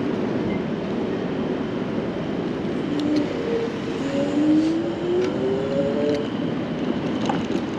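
Electric bike being ridden: steady wind and road noise, with a rising whine from about three seconds in to about six seconds, and a few light clicks and rattles.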